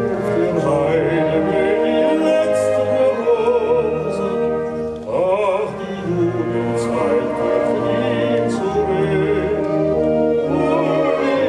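A man singing in an operatic style with vibrato, accompanied by a large wind orchestra, heard live from the audience.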